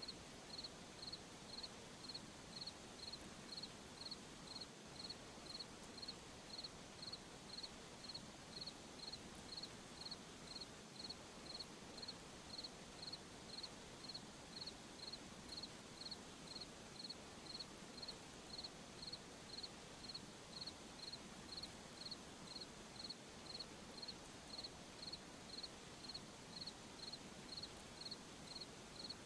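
Cricket chirping steadily at about three high-pitched chirps every two seconds, evenly spaced, over a faint steady hiss of night insects.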